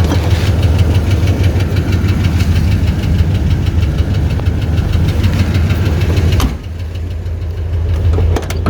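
1984 Chevy Caprice's 305 small-block V8 idling steadily with a rapid, even ticking, which the owner puts down to a little lifter tick. About six and a half seconds in the ticking and the higher sound drop away, leaving mostly the low engine drone.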